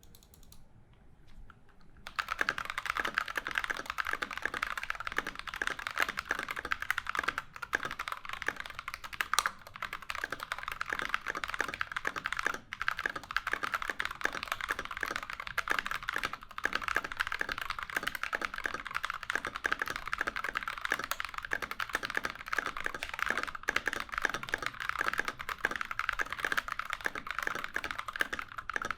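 Continuous fast typing on a NovelKeys NK65 Entry mechanical keyboard fitted with stock Evil Airy tactile switches (only the springs lubed), MT3 keycaps and an aluminium plate. A dense run of keystroke clacks starts about two seconds in.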